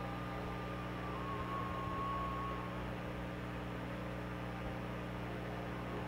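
A steady low hum over a light hiss, with a thin whistling tone that stops about two and a half seconds in.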